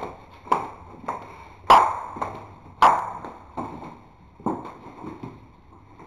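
A series of sharp knocks or clinks, each with a short ringing tail, about eight in six seconds; the loudest two come near two and three seconds in.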